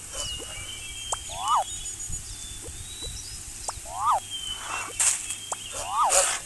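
Short animal calls that rise then fall in pitch, three times about two seconds apart, with short bursts of hiss between them.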